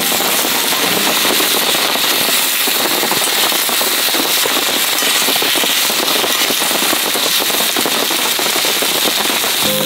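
Wood campfire crackling and popping hard, with shiso-topped patties sizzling in a steel skillet over the flames: a dense, steady run of sharp crackles over a hiss.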